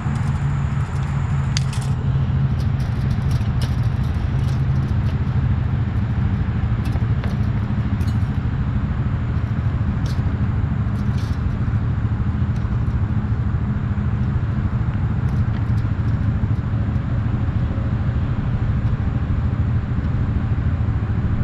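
An engine running steadily with a low drone, with scattered light clicks and taps mostly in the first half.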